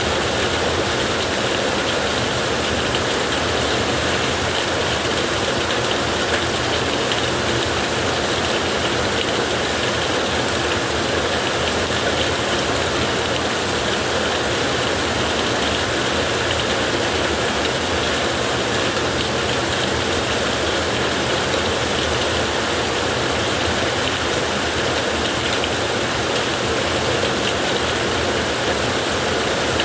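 Heavy rain falling on a tin roof: a dense, steady patter.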